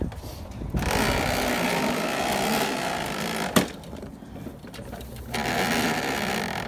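A push mower with its engine off being rolled along on its plastic wheels, a steady rattling roll. The roll comes in two stretches, with one sharp knock between them about three and a half seconds in.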